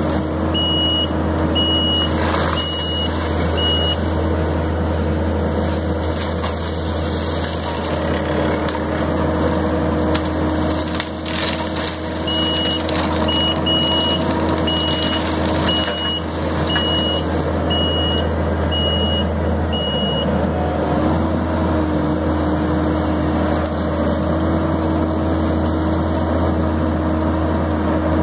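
Kubota SVL90-2 compact track loader's diesel engine running steadily under load while its Fecon forestry mulcher head spins and chews through brush and saplings, with occasional cracks of splintering wood. A backup alarm beeps in two spells, about a second and a half of beeps per second, once near the start and again for several seconds mid-way.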